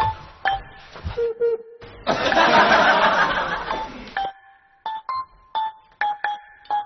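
Light comedic keyboard music of short staccato notes, interrupted about two seconds in by a loud burst of noise lasting about two seconds; the staccato notes then pick up again in a regular rhythm.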